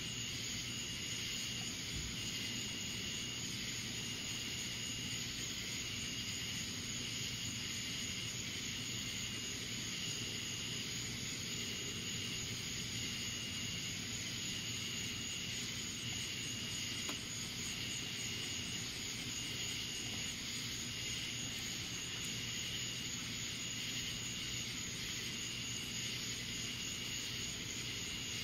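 Night insect chorus: a steady high trill, with another insect's call pulsing about every second and a half, over a faint steady low hum.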